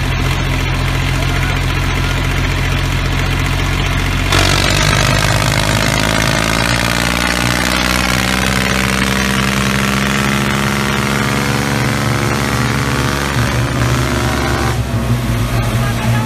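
Tractor engine sound effect running steadily. About four seconds in it changes pitch, dips and climbs again through the middle like an engine revving, and shifts once more near the end.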